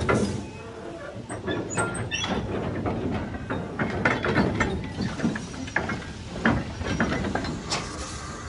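Irregular metallic clanks and knocks, with brief squeaks, from a horse-drawn 16-ton railway wagon being hauled along the rails.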